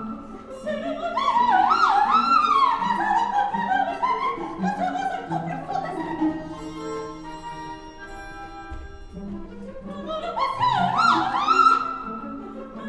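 Coloratura soprano singing fast, leaping runs in French over an opera orchestra. About halfway through the voice pauses for a few seconds of quieter, held orchestral tones, and the runs start again near the end.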